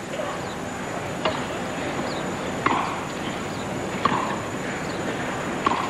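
Tennis rally on a grass court: sharp racket strikes on the ball about every one and a half seconds, over steady background noise from the crowd.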